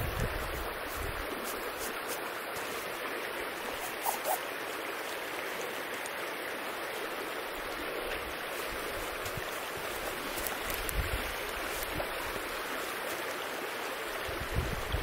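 River flowing steadily, an even rush of water, with a few faint brief knocks about four seconds in and again near eleven seconds.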